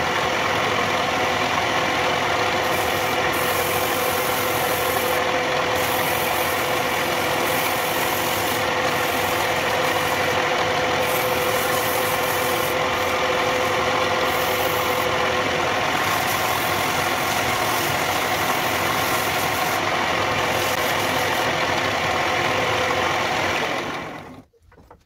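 Wood lathe running steadily with a square-sectioned leg blank spinning, a dense mechanical noise with a steady hum. Near the end the sound cuts off and falls away quickly as the lathe is switched off.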